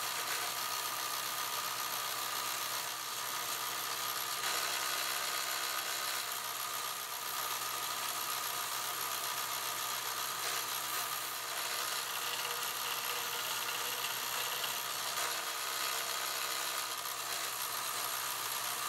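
Powered belt sander running steadily while a brass hammer head is held against its abrasive belt, a continuous motor whine with the hiss of the belt grinding the metal. The texture shifts a little now and then as the head is pressed and turned, cleaning the tarnish off the brass.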